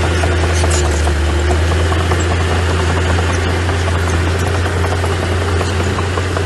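Engine of a small earthmoving machine (mini bulldozer or mini dump truck) running steadily with a deep, even hum, with light scattered ticks and rattles over it.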